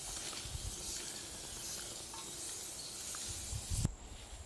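Steady soft hiss of outdoor ambient noise, with a few faint ticks. It breaks off abruptly near the end.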